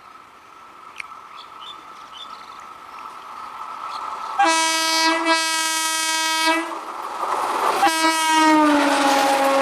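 Approaching electric train sounding its horn: two long blasts back to back about four and a half seconds in, then a third blast whose pitch drops as the train passes. Under the horn, the rumble and rattle of the train grow steadily louder.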